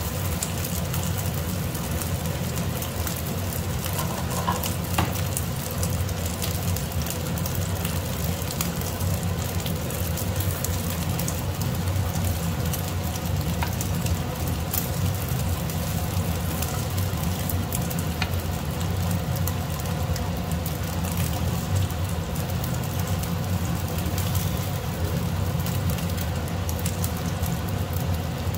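Thin slices of soy-marinated beef sizzling and crackling steadily in butter in a non-stick frying pan.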